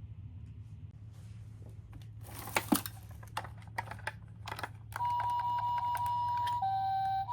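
A few sharp plastic clicks and knocks, the loudest about two and a half seconds in, then, about five seconds in, a toy ambulance's electronic two-tone siren starts, holding a high tone and then dropping to a lower one.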